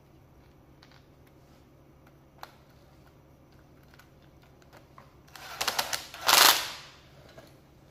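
12-volt cordless impact driver hammering briefly to loosen a screw in a plastic tool housing: two short bursts of rapid clattering strokes about five and a half seconds in, the second louder. Faint clicks of parts being handled come before.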